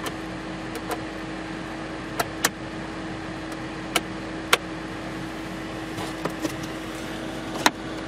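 Steady cabin hum from the 2013 Skoda Fabia's idling engine and air-conditioning fan, with one constant tone. Over it come about eight sharp plastic clicks, several in close pairs, as the overhead map-light switches are pressed and the sun visor is moved.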